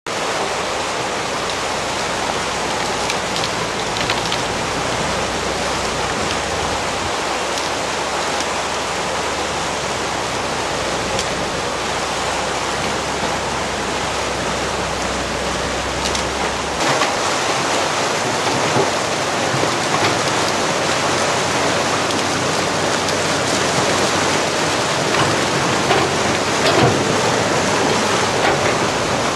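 Steady rush of fast-flowing floodwater in a swollen river, with a low hum of an excavator's engine beneath it that stops a little over halfway through.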